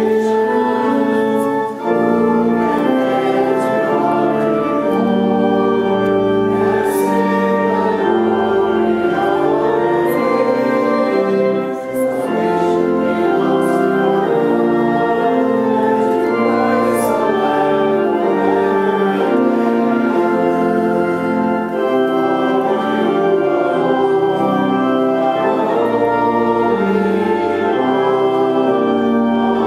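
Church organ playing held chords while people sing a hymn along with it.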